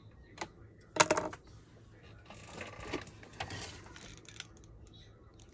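Small clicks and taps of plastic craft pieces being handled and set down on a wooden table, the loudest a quick cluster of clicks about a second in, with some rustling in the middle.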